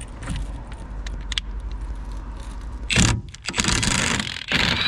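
Milwaukee M12 FUEL 1/2-inch cordless impact wrench hammering in three short bursts in the second half, undoing the rusty central hub nut on a car's brake disc hub.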